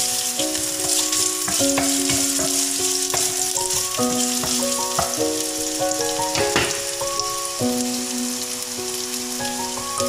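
Strips of ginger sizzling in hot oil in a frying pan, with a few sharp clicks of a spatula against the pan. Instrumental background music with held notes plays underneath.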